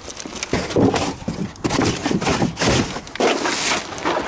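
Footsteps crunching on gravel: an uneven run of short crunches and scrapes.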